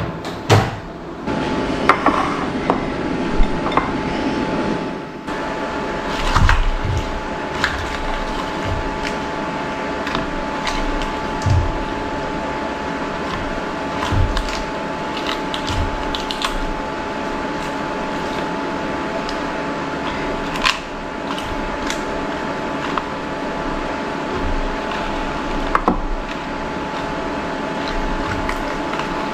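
Hands tearing and tossing iceberg lettuce leaves in a stainless steel bowl, with scattered light clicks and knocks, over a steady hum.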